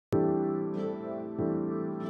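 Soft instrumental background music begins abruptly, sustained chords with a new chord coming in after about a second and a half.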